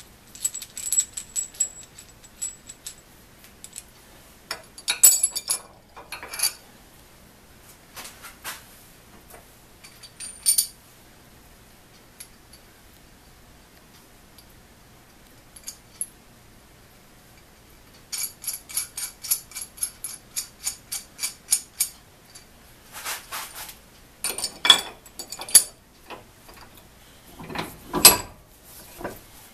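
Metal handwork on a Craftsman Jr vise: scattered metallic clinks and knocks, then runs of quick, even strokes, about three or four a second, as the painted vise base is smoothed with a hand file.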